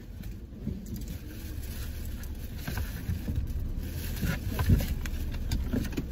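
Car running, a steady low rumble heard from inside the cabin, with scattered rustles and soft knocks as a puppy shifts about in its cardboard box and is pushed back by hand; one knock near the end of the fourth second is the loudest.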